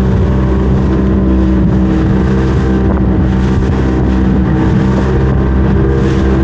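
Motor of a small water taxi boat running at a steady speed, with a hiss of wind and water above the engine note.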